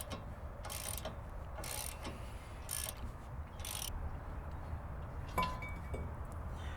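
Socket ratchet spinning out a loosened 18 mm brake caliper bracket bolt, in short ratcheting strokes about once a second, followed by a single sharp metal clink with a brief ring.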